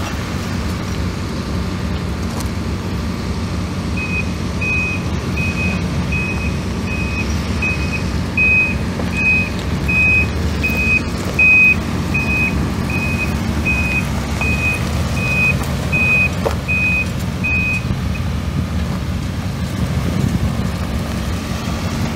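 The 5.9-litre V8 gas engine of a 1996 Dodge Ram 2500 pickup running steadily. From about four seconds in, a high electronic beep repeats about one and a half times a second for some fourteen seconds, like a reversing alarm.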